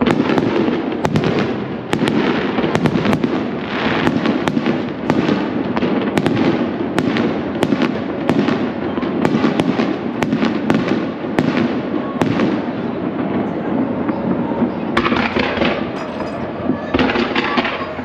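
Fireworks display: aerial shells bursting in quick, irregular bangs, about two a second, over a continuous crackle. Near the end the bangs thin out into a denser crackling.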